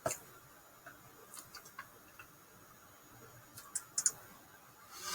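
Faint scattered clicks and ticks: a sharper click at the start, a few light ticks through the middle, and a quick cluster of sharper clicks near the end, over quiet room tone.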